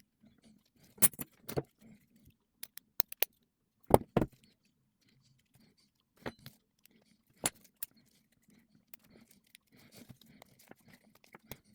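Scattered metallic clicks and clinks of a key and tools working in a euro lock cylinder as the jammed cam is worked free, with a pair of sharper knocks about four seconds in.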